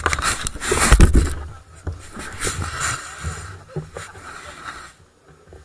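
Loud rumbling and buffeting on a handlebar-mounted camera's microphone for about the first second, then scattered knocks and rustling that fade out near the end.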